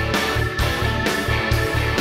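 Background rock music with guitar and a steady beat of about two hits a second.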